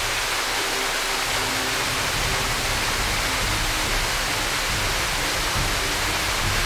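Small waterfall rushing steadily, a constant even roar of falling water.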